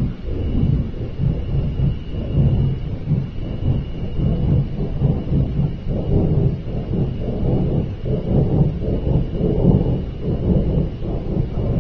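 Loud, continuous low rumbling roar from the sky, swelling and easing every second or so, with a faint steady high tone above it.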